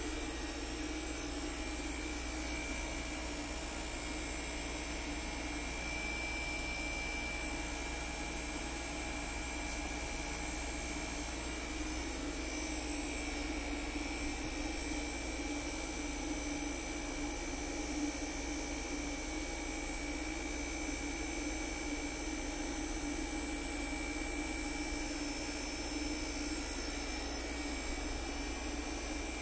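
Cruise N Comfort 12-volt mini-split air conditioner running with a steady whir and hum under a high whine while refrigerant is charged into it from a can.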